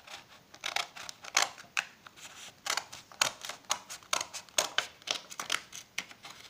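Scissors snipping through folded sheets of loose-leaf paper, cutting them in half along the fold, in a steady run of short snips about two or three a second.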